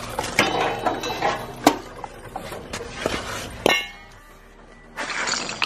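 Clinking and clattering of metal welding gear being handled and moved: the welder, its gun, cables and ground clamp knock together and against the concrete floor. There are a few sharper knocks in the first four seconds, then it goes quieter.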